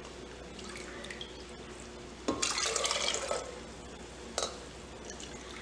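Water poured from a red plastic cup into an open aluminium pressure cooker of half-cooked dal: a splashing pour lasting about a second, followed a second later by one short sharp sound.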